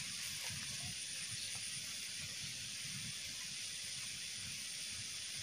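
Faint steady outdoor background hiss, with a light low rumble that flickers irregularly and a thin high whine on top.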